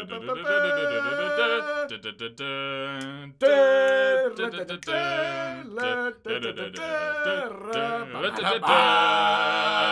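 A man's voice singing a cappella in a chant-like tune, the pitch wavering and swooping, in several phrases with short breaks between them.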